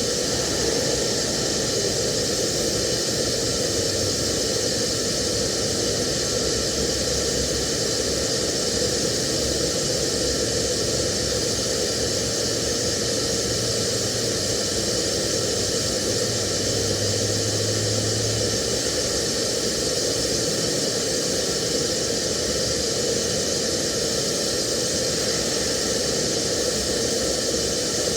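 TIG welding arc hissing steadily, with a faint low hum that swells for a few seconds midway.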